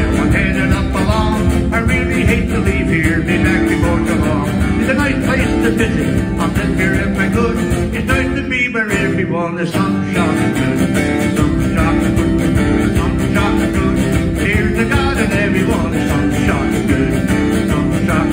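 Acoustic guitar strummed in a steady rhythm as live folk music, with a brief break near the middle before the strumming picks up again.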